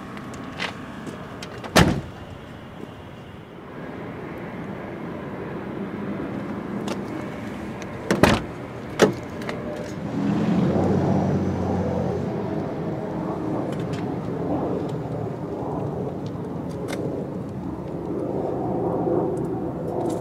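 Nissan Skyline GT-R R33 car door being handled: a sharp knock about two seconds in and two more close together around eight to nine seconds. Under them a steady rumbling noise that grows louder from about ten seconds in.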